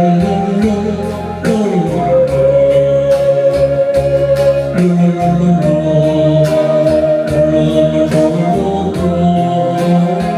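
Instrumental interlude of a Korean pop ballad's backing track: a long-held melody line over a shifting bass and a steady light beat.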